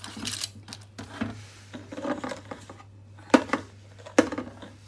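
Fish fillets being handled on a foil-lined metal baking tray: aluminium foil crinkling and light clatters, with two sharp knocks against the tray about three and four seconds in. A low steady hum runs underneath.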